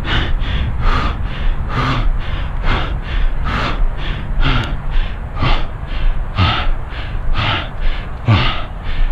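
A runner's hard, rhythmic breathing, about two heavy breaths a second with some huffed, voiced exhales, from exertion near the end of a fast 5k run; a steady low rumble lies underneath.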